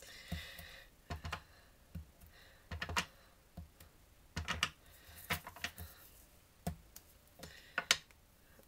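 Irregular taps and knocks of a wood-mounted rubber stamp being inked on an ink pad and pressed onto cardstock on a desk, a dozen or so in all.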